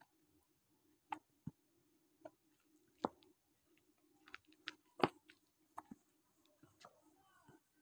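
Scattered faint knocks and taps of players moving about an indoor cricket net, with the loudest knock about five seconds in, over a steady low hum.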